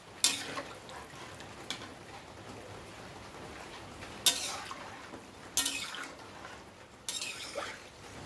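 A metal spatula stirring a watery rice-and-lentil mixture in a metal kadai, clinking and scraping against the pan about five times.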